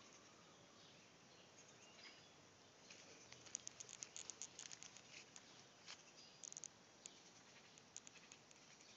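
Faint outdoor garden ambience with scattered short, high-pitched ticks, thickest in a quick run a few seconds in.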